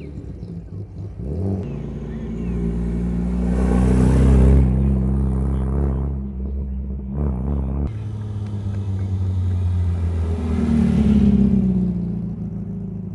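Classic cars driving past one after another, their engines running at steady revs. One grows loudest about four seconds in, and another swells past around eleven seconds.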